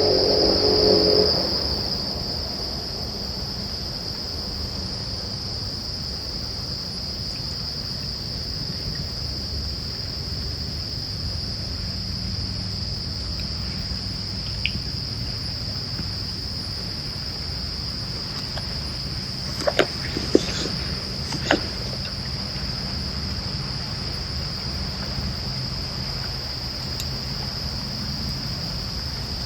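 Crickets singing in a steady, continuous high chorus, with three short sharp clicks about twenty seconds in.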